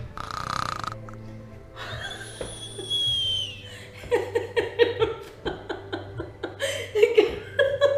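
A woman laughing hard in rapid bursts from about halfway through, while she wrestles a corkscrew in a wine bottle. Earlier, a single high squeak glides down in pitch.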